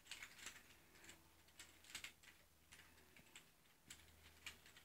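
Faint, irregular plastic clicks of an infinity cube being flipped and folded quickly in the hands, several clicks a second.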